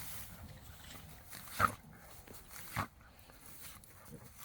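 A dog giving two short barks, a little over a second apart.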